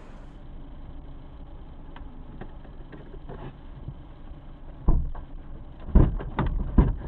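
Steady low rumble inside a car's cabin, broken by a few faint clicks and then several loud knocks and thumps about five seconds in and again between six and seven seconds.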